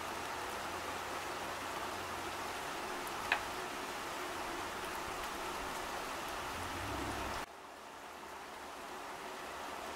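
Steady rain falling on garden foliage, an even hiss with a single drip tap about three seconds in. The rain sound drops suddenly to a softer hiss a little past halfway, then slowly builds again.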